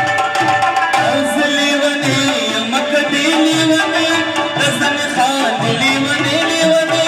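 Live folk music: tabla drumming in a steady rhythm under a melody of long, wavering held notes.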